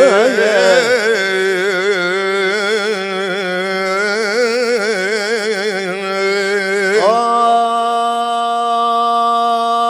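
Middle Eastern music between mawwal verses: a wavering melodic line with fast vibrato over a steady low drone, sliding up about seven seconds in to a long held note.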